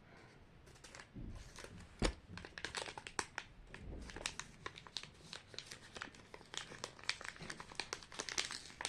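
Small plastic wrapper of a miniature toy package being crinkled and torn open by hand: a quiet run of light crackles and small clicks, with one sharper tap about two seconds in.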